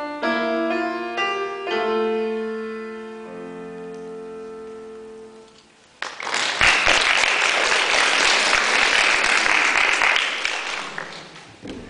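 Grand piano playing the last notes of a piece and ending on a held chord that dies away over a few seconds. About six seconds in, applause breaks out and fades near the end.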